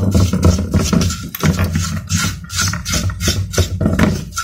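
Brush scrubbing a dusty computer motherboard by hand: quick scratchy strokes about three a second, with background music underneath.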